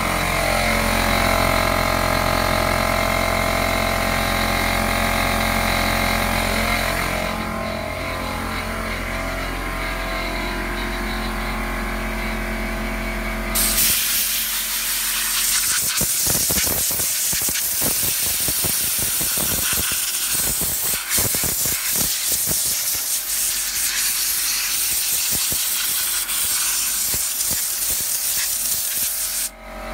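Electric air compressor motor running with a steady hum. About halfway through, a compressed-air blow gun starts blasting air across the aluminium heatsinks of an AntMiner S9 hash board, a loud hiss that flutters in quick, uneven bursts.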